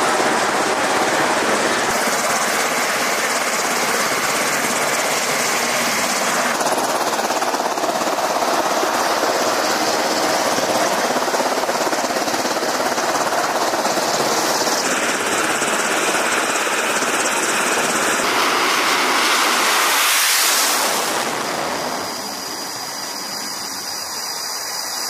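Steady, loud jet engine noise from aircraft running on a carrier flight deck, its tone shifting several times at cuts in the footage. About twenty seconds in there is a louder rushing surge, after which it drops to a quieter hiss.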